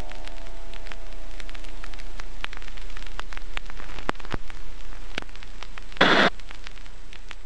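Surface crackle of an old recording: scattered clicks and pops over a steady hiss and low hum. A short, loud burst of noise comes about six seconds in.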